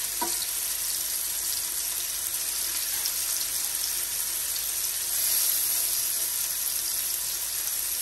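Small marinated steak bites sizzling steadily in hot olive oil in a ridged grill pan, a little louder after about five seconds.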